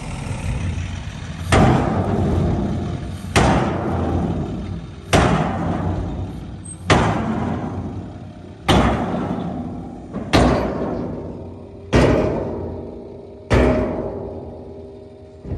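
Background music with a heavy, evenly spaced drum hit about every second and a half to two seconds, each fading out slowly over sustained low tones.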